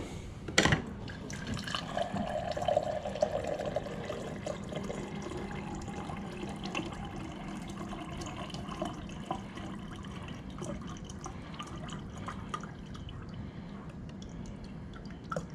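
Refrigerator door water dispenser running a steady stream of water into a glass while a newly fitted water filter is flushed. A sharp knock about half a second in.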